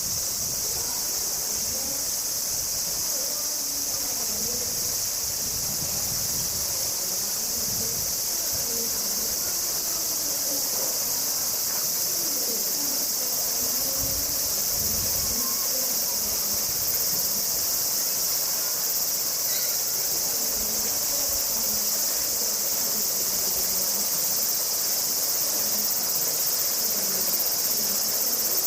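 Cicadas singing in a dense, steady, high-pitched chorus.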